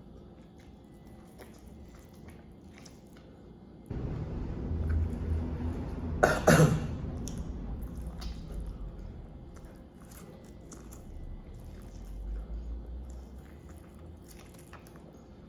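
A person coughs once, sharply, about six seconds in, over a low rumble that starts about four seconds in and fades out by ten. Faint clicks of eating and handling are heard around it.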